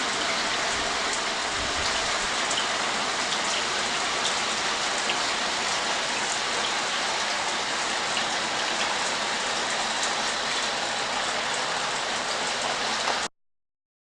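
Water spraying steadily from an Alsons 1.6 gpm low-flow eco showerhead and splashing below. It cuts off suddenly near the end.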